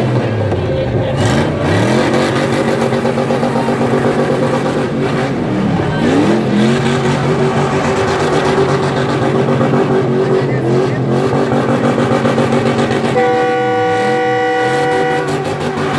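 A car engine revving hard and held near the top of its revs during a burnout, the revs dropping and climbing again several times. Near the end a horn blares steadily for about two seconds over it.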